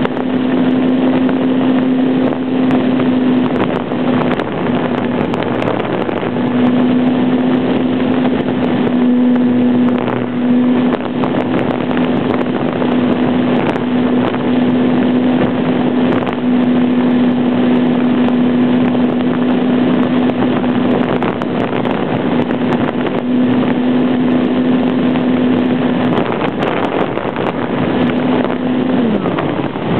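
RC model airplane's motor running steadily at one pitch, recorded by a camera on board, with wind rushing hard over the microphone. Near the end the motor note drops in pitch and falls away as the throttle is pulled back.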